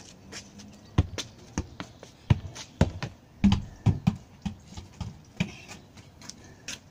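A run of irregular sharp knocks and taps: a football being kicked and bouncing on the ground, with footsteps of trainers on the paving.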